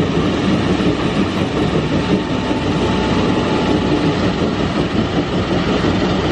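Diesel engine of a LiuGong wheel loader running steadily as the loader drives and works, a continuous low mechanical drone.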